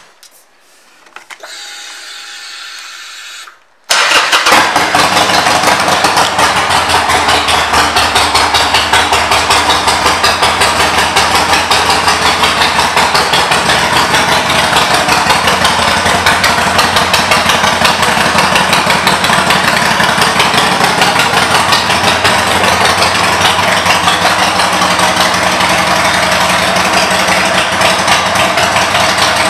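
A 2007 Harley-Davidson Sportster 1200 Nightster's air-cooled V-twin is started: a short steady whir, then the engine fires about four seconds in. It settles into a loud, steady idle through its Vance & Hines pipes.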